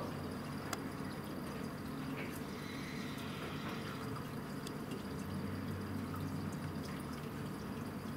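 Aquarium aeration: air from an air stone bubbling steadily up through a fish tank, over a low steady hum.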